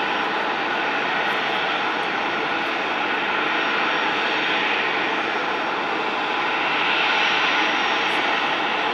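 Jet airliner engines running, a loud steady rushing noise that swells slightly about seven seconds in.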